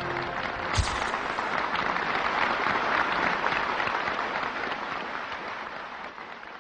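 A banquet audience applauding, a dense clapping that gradually fades away toward the end, with a single knock about a second in.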